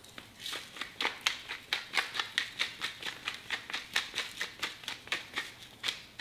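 Hand pepper mill being twisted over and over, its grinder giving short rasping clicks about four or five times a second.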